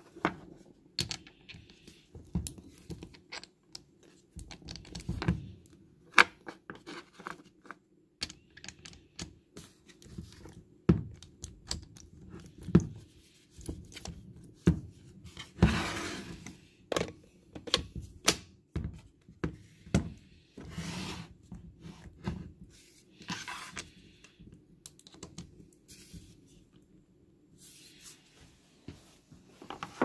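Irregular clicks, knocks and thunks of metal parts being handled: crimp dies and jaw parts of a Milwaukee M18 cordless crimper being removed and fitted, with a few short scrapes, and the tool bumped and turned over on the bench.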